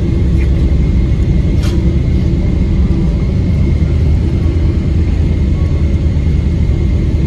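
Cabin sound of a Boeing 777-300ER rolling on the ground after landing: a loud, steady rumble from its GE90 engines and airframe, with a thin steady whine above it.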